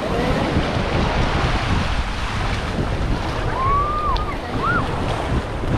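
Small waves washing and foaming over the shallows at the shoreline, with wind buffeting the microphone in a steady low rumble. Two brief faint high calls sound a little past the middle.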